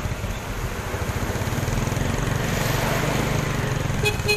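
Small motorcycle engine running steadily under its riders, a fast even pulsing, with a brief high tone just before the end.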